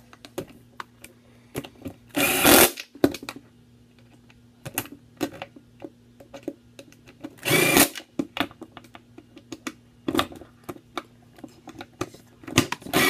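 Power drill driving skateboard truck bolts in short bursts: three runs of about half a second and one shorter one, with small clicks and rattles of hardware being handled in between.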